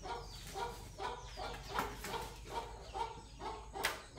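Chicken clucking in a steady repeating rhythm, about two to three clucks a second, with one sharp click shortly before the end.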